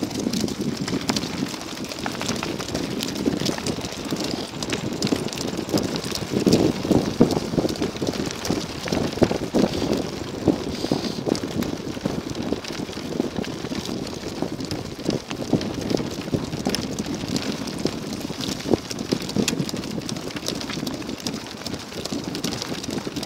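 Sacco dog cart rolling over a gravel track behind three running dogs: wheels on gravel and the patter of paws make a steady crackling rush full of small clicks.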